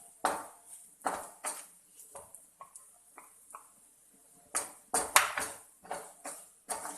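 A utensil stirring and scraping in a cooking pan, making irregular clinks and scrapes against the pan as roasted ground coconut paste is mixed into sautéed onions. The loudest run of strokes comes about five seconds in.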